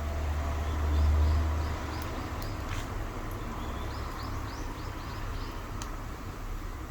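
Outdoor ambience: a low rumble swells about a second in and then eases off. A bird calls in two runs of short repeated chirps, with a few sharp clicks.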